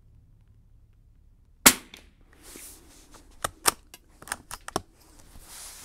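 A single .22 rimfire rifle shot from a 1941 Marlin 81 DL bolt-action rifle, sharp and loud. It is followed a second or so later by a quick run of smaller metallic clicks as the bolt is worked to eject the spent case and feed the next round from the tube magazine.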